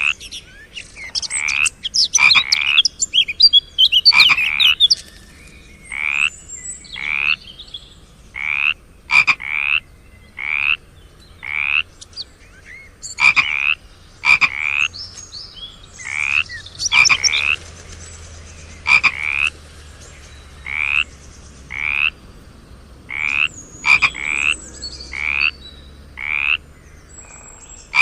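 Frogs calling: a steady series of short, upward-sweeping croaks, roughly one a second, with some higher, thinner chirps mixed in during the first few seconds.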